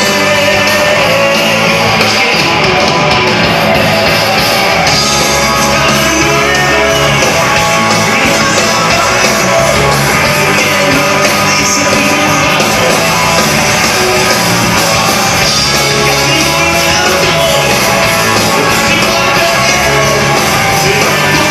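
Rock band playing live and loud through a PA, with electric guitar, bass and drums, and a voice singing at times.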